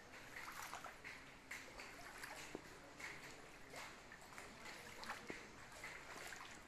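Muddy floodwater running and sloshing across a wrecked shed floor: a faint, uneven watery hiss with scattered small splashes and clicks.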